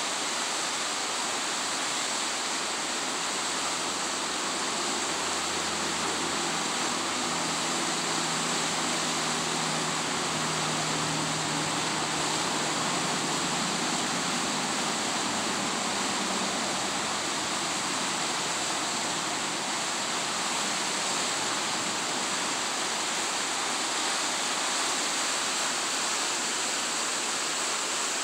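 Beaverkill River rapids: fast, high water rushing over rocks in a steady, even roar of white water.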